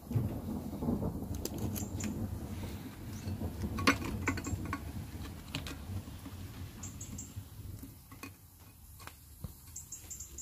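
Gloved hands lifting a compressed coil spring, spring compressors clamped on, off a front shock absorber strut: rustling, scraping handling noise with scattered metal clicks, the sharpest about four seconds in. It grows quieter over the last few seconds.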